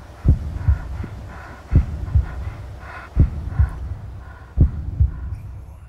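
Newfoundland dog breathing heavily with its mouth open right at the microphone, each breath landing as a pair of low puffs, repeating about every second and a half.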